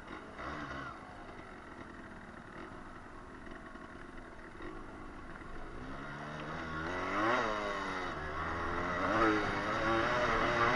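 Yamaha 125 cc trail motorcycle engine running at low revs, then revved up and back twice, about seven and nine seconds in, as the bike pulls away, growing louder near the end.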